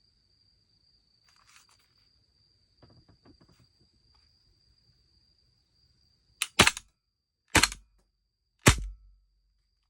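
Tanaka H&K USP stainless-finish airsoft pistol: faint handling clicks, then three sharp shots about a second apart.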